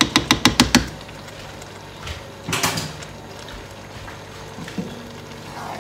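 A cooking spatula tapped quickly against a pot about seven times, knocking off the food, followed by a brief scrape about two and a half seconds in. A steady low hum continues underneath.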